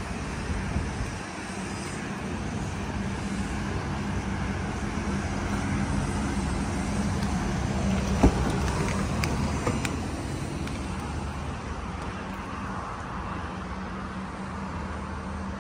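Steady low vehicle rumble with a hum, with one sharp click about eight seconds in and a few lighter clicks soon after.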